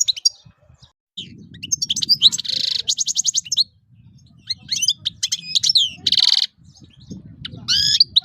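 European goldfinch singing: a fast, twittering song of rapid chirps broken by buzzy trilled phrases and a quick run of repeated notes, with short pauses between phrases. A low rumble sits underneath.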